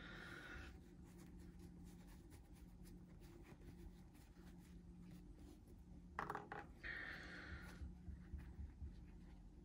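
Faint rubbing of a microfiber cloth as a small knife part, the grime-coated pivot, is wiped clean, with two brief swishes and a light tap about six seconds in.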